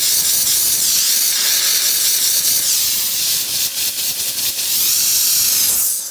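Handheld steam cleaner blasting steam from its nozzle onto a tar spot on the floor: a loud, steady hiss that cuts off suddenly near the end as the steam is shut off.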